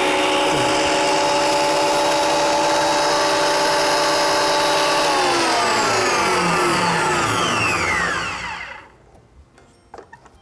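Metabo DH330 thickness planer's universal motor and cutter head running free with a loud, steady high whine, then switched off about halfway through and spinning down, its whine falling in pitch and fading out.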